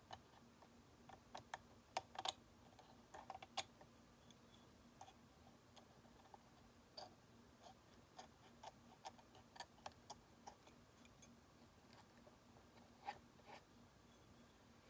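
Metal hand scaler scraping and clicking against the plastic teeth of a dental typodont: faint, irregular ticks, with a cluster of sharper clicks about two to four seconds in. A faint steady hum lies underneath.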